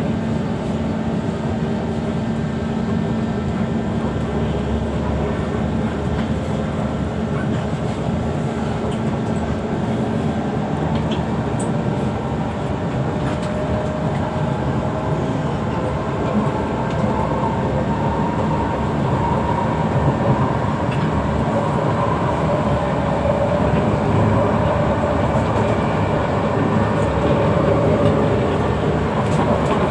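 Interior running noise of a Kawasaki Heavy Industries C151 metro train under way: a steady rumble of wheels on rail and car body, with faint steady tones from the traction equipment. It grows slightly louder toward the end.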